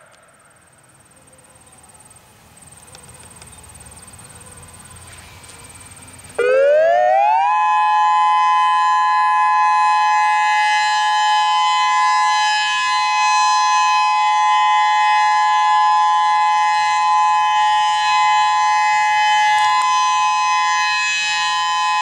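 Whelen 3016 electronic outdoor warning siren starting about six seconds in. Its pitch sweeps up quickly, then holds a loud, steady two-note tone. Before that there is only faint background.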